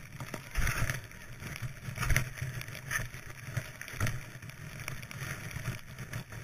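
Skis hissing through deep powder snow, with wind rumbling on the microphone and several louder thumps as the skier rides over bumps.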